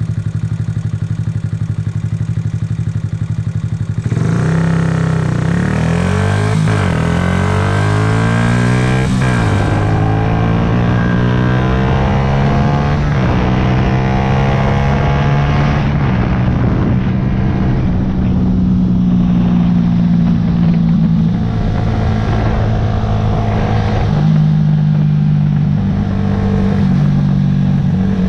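2009 Yamaha YZF-R125's single-cylinder four-stroke engine, steady at low revs for about four seconds. It then revs up hard through the gears, the pitch climbing and dropping back at two quick upshifts, and settles into a steadier cruise with small rises and falls in revs.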